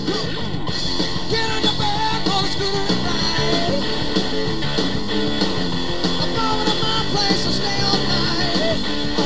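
Rock music with notes gliding up and down in pitch.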